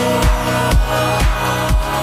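Background music with a steady kick-drum beat about two a second under electronic tones.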